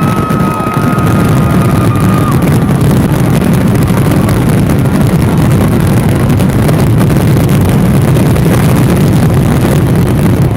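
A dense fireworks barrage, its shells bursting so fast that they blend into a loud, continuous rumble with crackling on top. A steady high-pitched tone sounds over it for the first two seconds.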